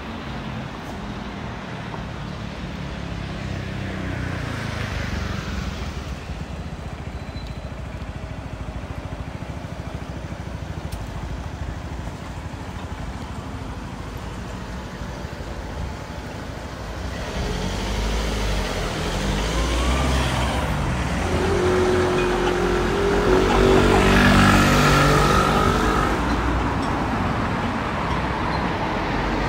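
City road traffic: cars driving past on the street. The noise grows louder in the second half as a vehicle accelerates past, its engine rising in pitch.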